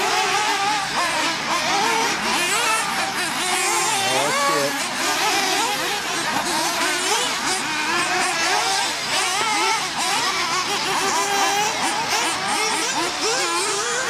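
Several radio-controlled off-road racing buggies running round a dirt track, their small high-revving engines overlapping and rising and falling in pitch as they accelerate and ease off.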